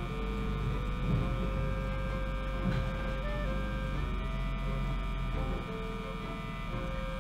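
Speaker of an early-1930s Auburn AC/DC TRF radio being powered up slowly on reduced voltage. It gives a steady mains hum with faint sustained tones that change pitch in steps, like distant music coming through.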